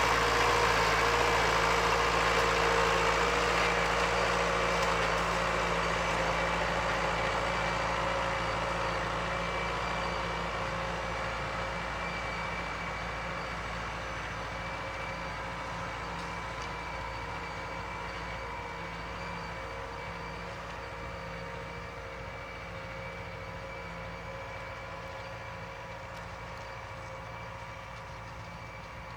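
Tractor engine running steadily under load while plowing, with a constant droning pitch, growing gradually quieter throughout.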